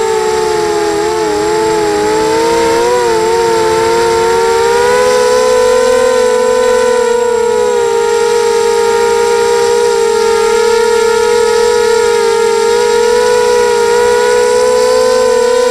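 Motors and propellers of a 250-size mini quadcopter whining loudly, as picked up by its onboard camera. For the first few seconds the pitch wavers up and down in several close tones, then settles into one steady whine as it hovers.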